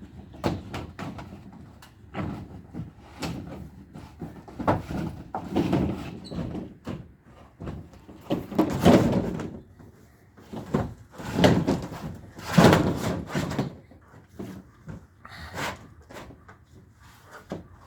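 Irregular knocks, bangs and scraping from building materials being handled and fitted while a patio cover is put up, with the loudest, longer scrapes and rattles about halfway through.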